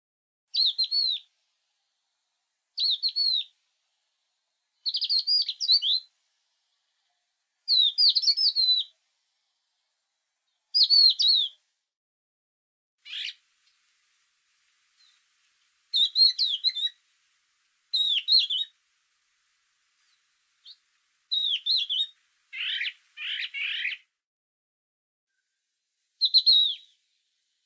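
A songbird singing short, quick, warbling phrases, one every two to three seconds, about ten in all. A few harsher, lower-pitched phrases come just before the end.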